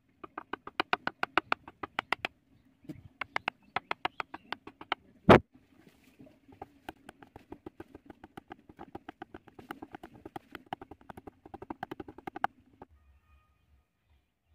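A metal punch struck in quick, light taps, several a second, stippling a dotted texture into the centre of a carved wooden flower. There is one much louder knock about five seconds in, and the tapping stops near the end.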